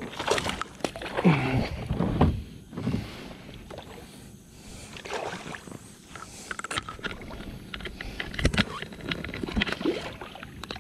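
Irregular splashing and sloshing around a plastic fishing kayak, with knocks and sharp clicks from rod and line handling, while a hooked fish is played on a hard-bent rod.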